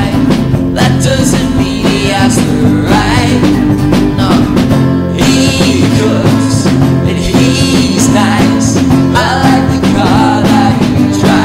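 A folk-punk band's song, loud and steady: guitars strummed over a drum kit in a full mix.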